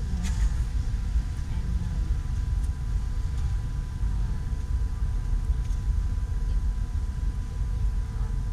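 Wind rumbling on the microphone, with a faint steady high tone above it.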